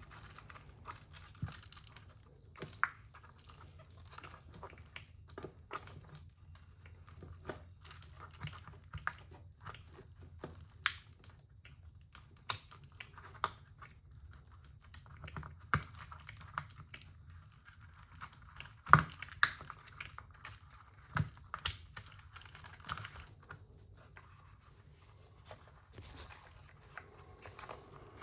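Irregular light clicks and taps of small plastic RC car parts and wiring being handled and fitted by hand, with one louder knock about two-thirds of the way through.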